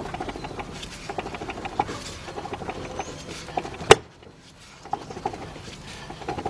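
Torque converter being spun and wiggled by hand on an automatic transmission's input shaft while pushed back to seat it into the pump: a rapid run of metal ticks and scraping with short squeaks, and one sharp clack about four seconds in.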